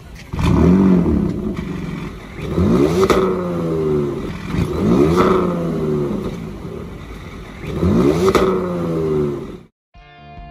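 2020 Audi S6's 2.9-litre twin-turbo V6 revved four times, each rev rising sharply in pitch and dropping back to a steady idle. The engine sound cuts off near the end and music starts.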